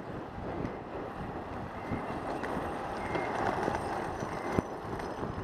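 Riding noise from a bicycle on wet pavement, picked up by a camera mounted on the bike: a steady rush of wind on the microphone and tyre hiss, with small knocks from the bike over the road and one sharp knock near the end.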